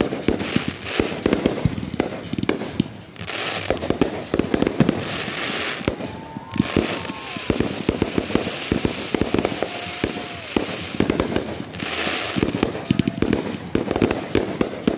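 Consumer aerial fireworks firing in quick succession: rapid launch thumps and bursting cracks, with several stretches of dense crackle and hiss.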